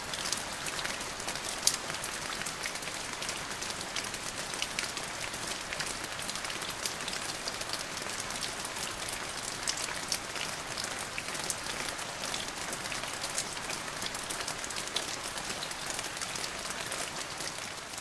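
Rain falling: a steady hiss dotted with many small sharp drop ticks.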